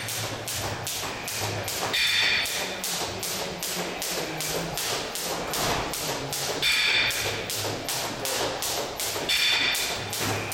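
Jump rope whipping round and slapping a rubber gym floor in a steady rhythm, about three strokes a second, mixed with the jumper's feet landing.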